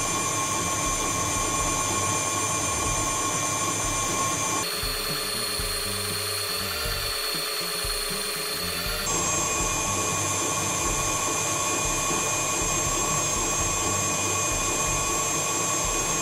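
Stand mixer running steadily with its wire whip beating egg whites and sugar toward soft peaks for meringue, a constant motor whine. Its tone shifts for a few seconds in the middle, then returns to the same whine.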